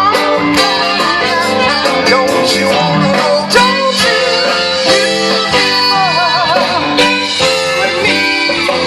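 Live band playing a Motown-style song: a singer over guitar and a steady drum beat.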